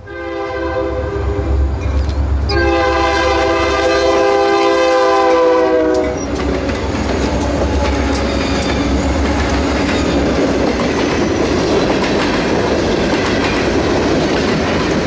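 Diesel locomotive air horn sounding a chord in two blasts, a short one then a longer one about three and a half seconds, over a low engine rumble. After the horn stops, the train rolls past with a steady clatter of wheels on rail.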